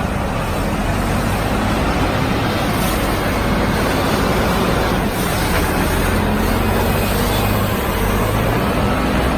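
Self-loading concrete mixer's engine running steadily under load, with a constant broad mechanical noise.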